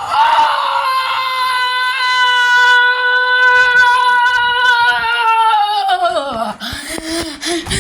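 A person's voice wailing: one long, high cry held at a steady pitch for about six seconds that then slides down, followed near the end by shorter, lower wavering cries and a few clicks.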